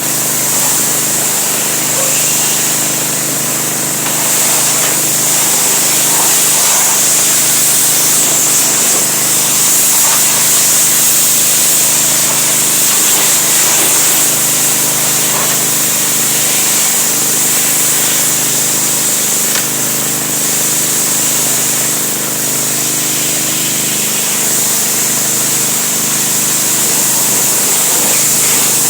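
Pressure washer running steadily: an even motor hum under a continuous loud hiss of water spray.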